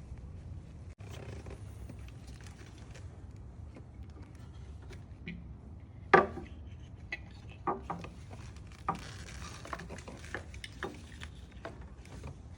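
Handling sounds from hand work on a car engine: scattered knocks and clicks of tools and parts, the loudest about halfway through and a run of lighter ones after it, over a steady low hum.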